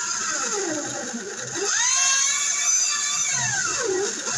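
Power drill with a wide wood bit boring into a pine plank. The motor whine dips and rises again and again as the bit bites into the wood and clears chips.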